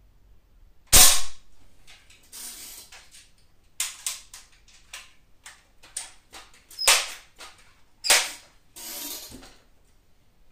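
Multi-pump pellet air rifle being shot: three sharp cracks, one about a second in and two about a second apart near the end, with a run of lighter clicks and two short rushing noises between them.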